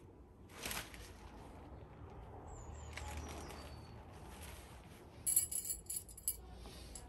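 Tent fabric and cord swishing as they are handled, then a quick cluster of sharp, light metallic clinks about five seconds in, typical of light alloy tent pegs knocking together.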